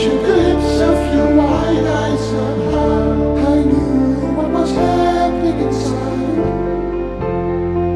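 Slow background music with sustained chords and a bass line that changes note about once a second.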